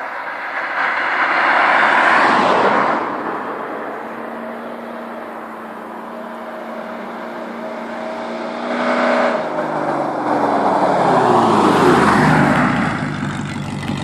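Rover 3.9-litre EFI V8 running through an almost straight-through exhaust. It swells loud twice, holds a steady drone in the middle, then its pitch falls away over a few seconds as the revs drop.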